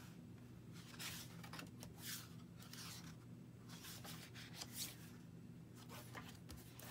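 Thick, paint-coated paper pages of a sketchbook turned by hand: several soft, faint rustling swishes a second or so apart.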